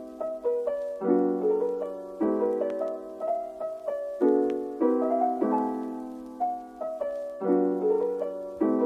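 Background music: a piano tune with chords struck about once a second, each fading before the next.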